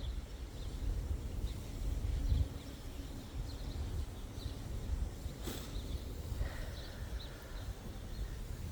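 Outdoor background: an uneven low rumble with faint, scattered bird chirps, and a single sharp click about five and a half seconds in.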